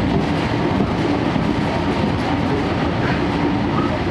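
Interior of a moving 12-series passenger coach: steady running noise of wheels on rail with some clickety-clack, over the constant drone of the Suhafu 12 car's underfloor diesel generator engine.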